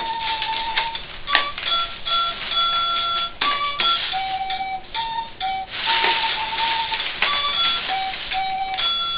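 Toy harp playing single notes one after another, each a steady tone held for a moment and then cut off, with clicks and clatter between the notes. A brief rustle comes about six seconds in.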